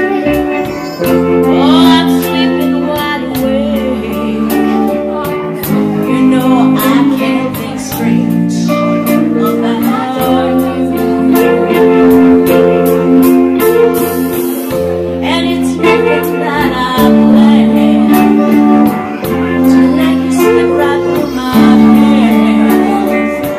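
Live band performance with a woman singing lead over drums and cymbals, bass guitar, electric guitars and keyboard.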